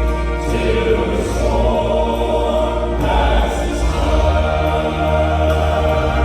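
Southern gospel vocal group singing a slow hymn in harmony over a steady bass accompaniment.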